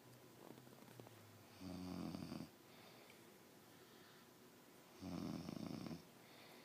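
A man snoring in his sleep: two loud snores, each about a second long and about three seconds apart, with soft breathing between them.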